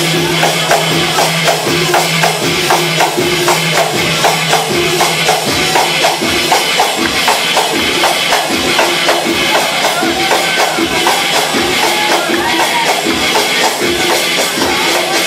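Instrumental dance music from a live band: a fast, steady beat of drums and tambourine under a held melody.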